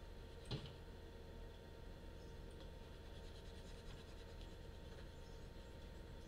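Faint room tone with a single sharp click about half a second in and light scratching a few seconds later, from a computer mouse being clicked and slid across the desk while painting.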